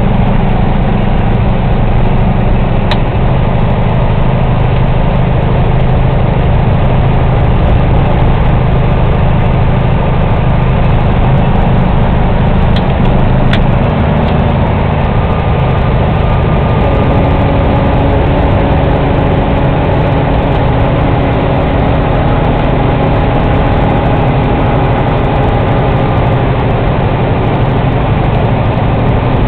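Heavy truck's diesel engine running steadily under way, heard from inside the cab, with road noise. About halfway through the engine note changes and a higher steady tone joins.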